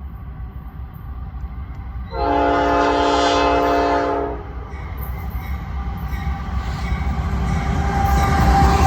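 Norfolk Southern train 212's locomotive horn sounds one long blast of about two seconds, about two seconds in, over the train's low rumble. The rumble then grows steadily louder as the train comes closer.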